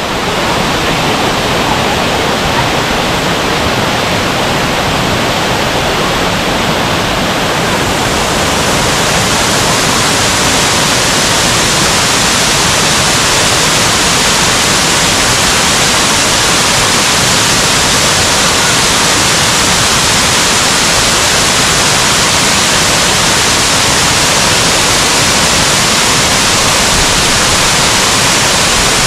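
Waterfall: a loud, steady rush of falling water that turns brighter and hissier about eight seconds in.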